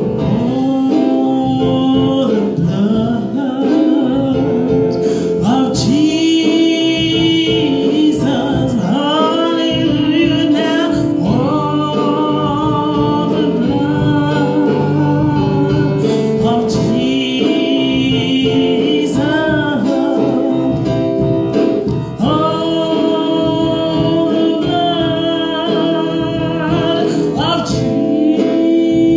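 Gospel song sung with instrumental accompaniment.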